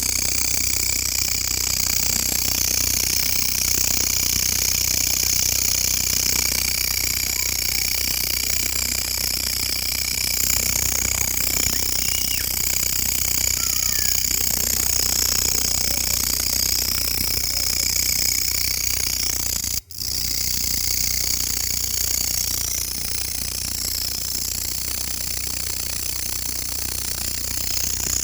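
Grasshopper stridulating: a continuous, dense, high-pitched buzzing trill under a low steady hum. It breaks off for an instant about twenty seconds in, then goes on.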